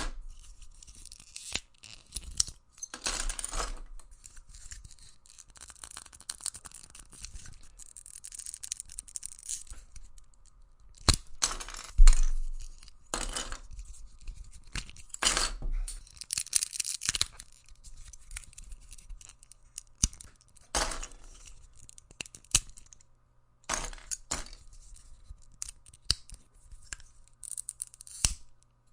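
Plastic Lego bricks being handled while building: pieces rattling, clicking and scraping against each other in irregular bursts, with sharp clicks between them.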